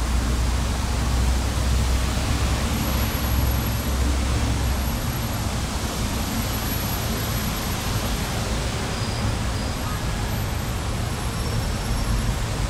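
Steady rushing noise with a low rumble underneath, unchanging throughout, with no distinct events.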